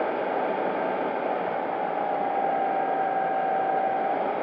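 Onboard sound of an electric FMS P-40B Tomahawk RC warbird in flight: a steady rush of air over the airframe, with a steady motor-and-propeller whine coming in about halfway through.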